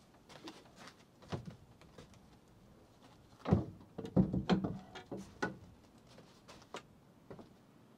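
Wooden plank door with iron strap hinges being pulled shut, a cluster of knocks and thuds from about the middle on, with lighter footsteps and knocks on a wooden porch floor around it.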